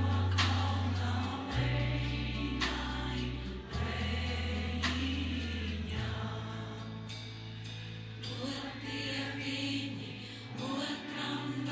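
Live band performance of a Latvian folk song: a woman singing over held low bass notes, with drum strokes about once a second through the first half.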